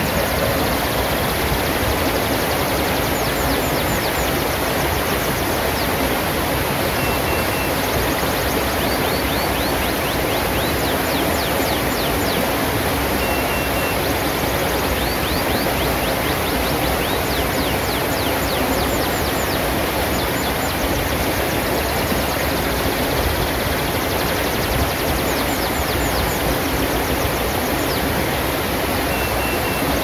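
Shallow rocky stream rushing steadily over boulders and small rapids, an even rush of water. Small wild birds chirp over it in quick runs of high notes several times.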